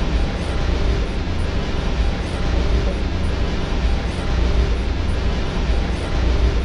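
Harsh noise music: a dense, unbroken wall of distorted noise, loudest in the deep bass.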